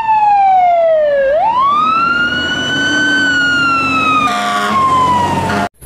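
Fire engine siren wailing: the pitch falls, swoops back up, then slowly falls again. A short horn blast sounds over it about four and a half seconds in, and the sound cuts off abruptly just before the end.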